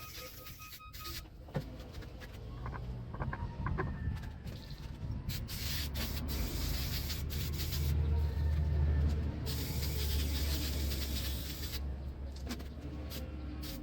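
Coil cleaner being sprayed onto air-conditioner coils: a hiss that starts and stops in stretches, over a low rumble of handling or wind noise.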